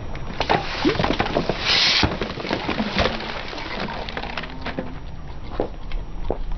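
Car tyre rolling over a row of liquid-filled plastic drink bottles, the plastic crackling and crunching irregularly as the bottles are crushed and burst, with a short burst of hiss about two seconds in.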